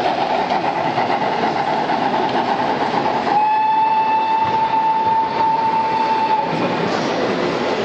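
A model train running past on a layout, a steady rolling rumble under general hall noise. About three seconds in, a single steady whistle tone sounds for about three seconds and cuts off.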